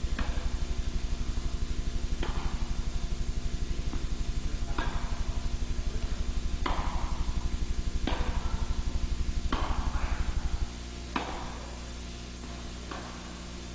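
Tennis balls being hit with a racket in an echoing indoor hall, sharp knocks every second and a half to two and a half seconds as in a rally. Under them runs a loud low electrical buzz that drops to a much quieter hum about three-quarters of the way through.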